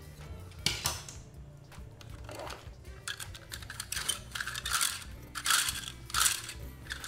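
Hard plastic toys clicking and clattering as they are handled and shifted in a cardboard box: one sharp click under a second in, then a run of rattling knocks from about three seconds in.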